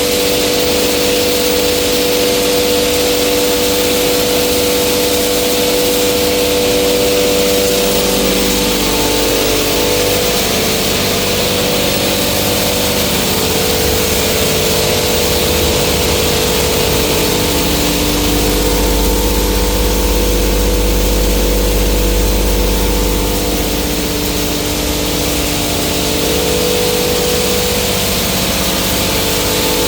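Soybean pulverizer (grinding mill) running steadily: a loud, continuous motor hum with a broad hiss, its pitch shifting slightly a few times.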